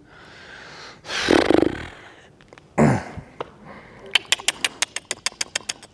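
A horse snorts, blowing hard through her nostrils with a fluttering rattle, about a second in. A short falling sound follows, then a rapid, even run of sharp clicks near the end.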